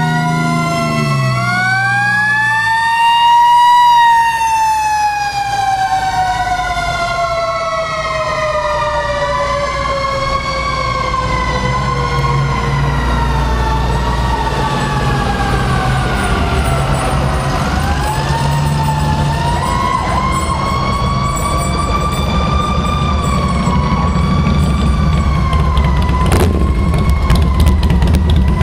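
Several fire apparatus sirens wailing at once, overlapping and gliding slowly up and down in pitch, one winding down in a long fall, over the rumble of the passing trucks' engines. Near the end the engine rumble grows louder as a motorcycle passes close by.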